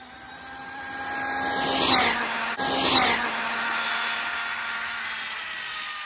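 Arrma Infraction V2 RC car's brushless motor and drivetrain whining at full speed as it runs past, growing louder, loudest about two seconds in and again a second later with the pitch dropping each time, then fading away.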